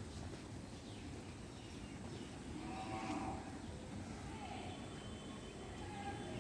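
Outdoor rural ambience with a steady low background rumble. A distant animal calls once, briefly, about three seconds in, and faint bird calls come near the end.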